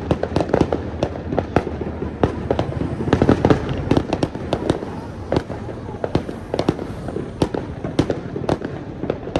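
Fireworks going off: many sharp pops and bangs in quick, irregular succession, bunching into a dense cluster about three to four seconds in.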